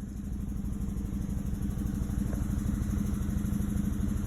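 Chevrolet Malibu engine idling with a steady, fast pulsing while misfiring on cylinders 2 and 3 (code P0300). A faulty coil pack was later found to be the cause.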